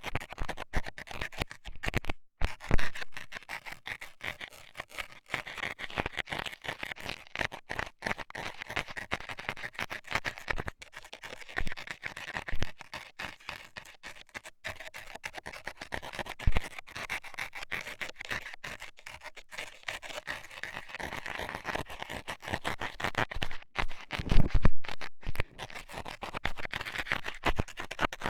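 Metal dental scaler scraping and poking at an ear: a dense run of quick, scratchy strokes, with a couple of louder knocks, one near the start and one near the end.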